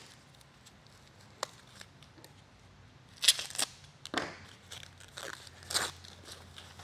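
White packing wrap torn and crumpled by hand while a grill part is unwrapped: a light click about a second and a half in, then a few short crinkling rustles in the second half.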